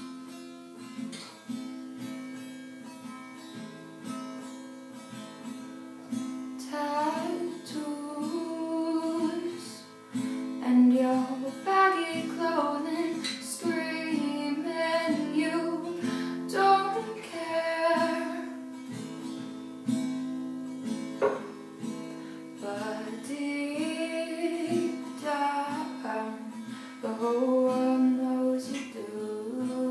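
Acoustic guitar played with a woman singing over it. The guitar plays alone at first, and the singing comes in about seven seconds in and carries on over the guitar.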